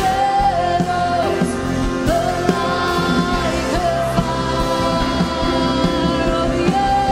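Live worship band playing a rock-style song, a woman singing lead with held, gliding notes over electric guitars, saxophone and drums.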